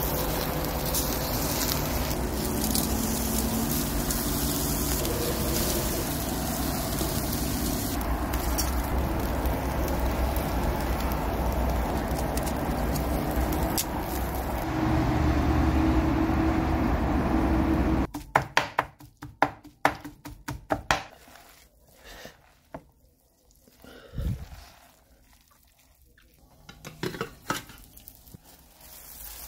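Meat sizzling on a charcoal grill, with a few light clicks of metal tongs; it is a little louder for its last few seconds. About two-thirds of the way through it cuts off, and it goes quiet apart from scattered clicks and taps.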